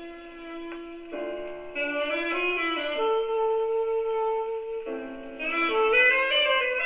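A 78 rpm shellac record played on a Sankyo Goldring portable wind-up gramophone with a steel needle. It plays a band passage of sustained melody notes led by wind instruments over chords, with the thin sound of acoustic playback: little bass and little treble.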